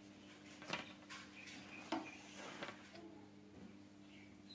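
A metal utensil clicking against a wire cooling rack: two sharp clicks about a second apart with a few fainter taps, over a low steady hum. A bird starts chirping near the end.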